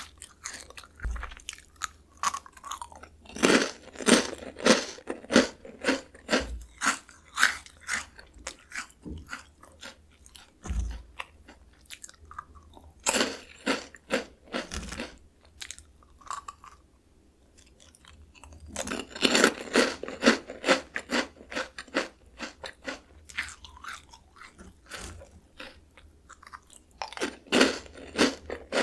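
Close-miked crunching and chewing of Jagalchi, a crisp Korean bagged snack: bursts of rapid crackly crunches as fresh pieces are bitten, easing to softer chewing between, with a brief lull in the middle.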